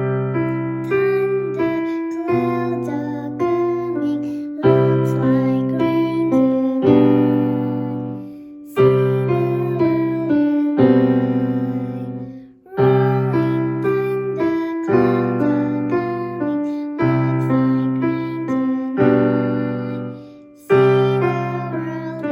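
Electronic keyboard playing in a piano voice: a simple melody over held bass chords, with a new chord struck about every two seconds and each note fading after it is struck.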